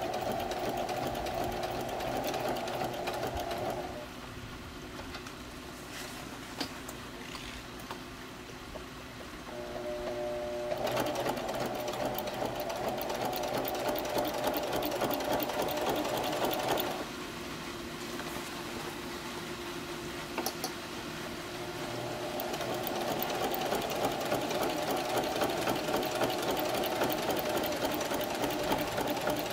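Sewing machine with a walking foot stitching heavy vinyl, running in three spells with short pauses between them.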